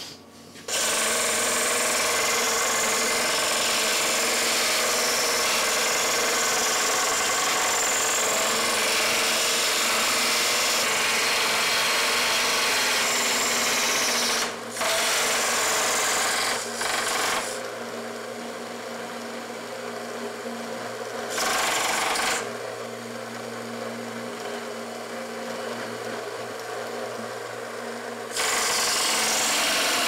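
Small bench belt sander running, its electric motor humming steadily, with long loud stretches of gritty sanding noise as a plywood box is pressed against the belt. The sanding fills most of the first half, breaks off briefly twice, then comes in short passes while the motor runs on between them.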